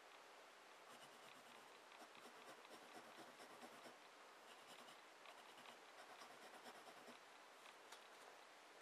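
Wooden graphite pencil scratching across a sheet of paper in faint, short strokes as lines are drawn, starting about a second in.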